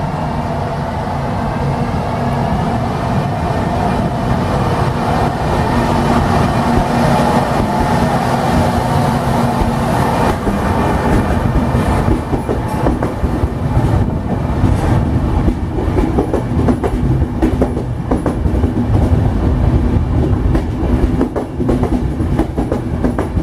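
Electric-locomotive-hauled passenger train running along the platform: a steady hum with faint whining tones as the locomotive comes in, then from about halfway the coaches' wheels clicking over the rail joints.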